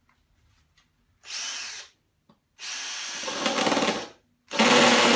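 Ryobi cordless drill run in three short bursts, the last the loudest, as a small bit is pressed into glazed ceramic wall tile.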